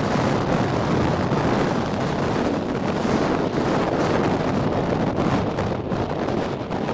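Strong blizzard wind buffeting the microphone: a loud, steady rush of noise that swells and eases with the gusts.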